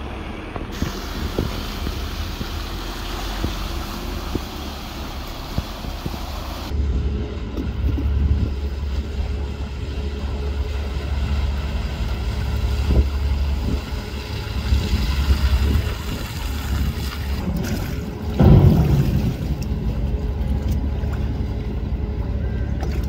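Wind buffeting the microphone over a steady low rumble, with cars driving through shallow floodwater and onto the ferry's loading ramp. About four-fifths of the way through, a vehicle swells loudest as it passes close.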